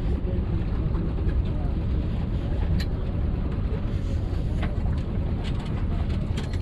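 Wind buffeting the microphone aboard a sailboat, a steady low rumble.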